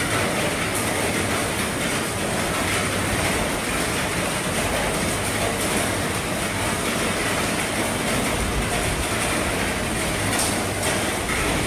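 Heavy rain falling on an RV's roof: a steady, dense patter with scattered louder drops.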